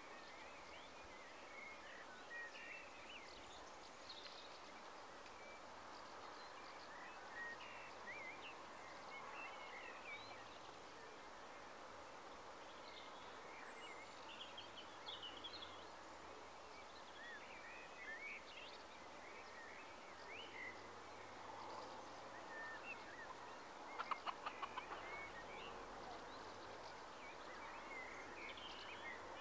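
Faint outdoor evening ambience: birds chirping and calling on and off against a steady low hiss. Near the end comes a quick run of about eight sharp clicking notes, the loudest sound.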